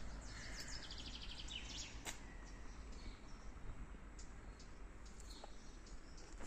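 Songbirds chirping, with a quick run of high, rapidly repeated chirps in the first two seconds and a few scattered calls after, over faint steady outdoor background noise.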